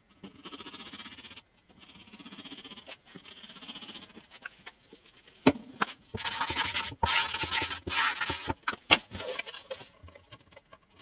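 Glue squeezed from a plastic bottle in lines along masking tape, with a faint sputtering hiss. After a couple of sharp clicks comes the loudest part: several hissing sprays from a small pump bottle of CA glue activator. A few clicks follow as the template is set down on the blank.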